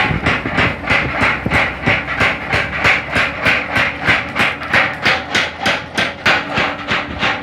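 Forging power hammer striking hot steel in a steady, even rhythm of about three blows a second.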